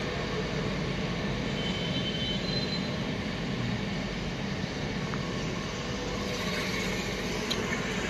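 Steady rumbling background noise, even in level throughout, with no distinct events.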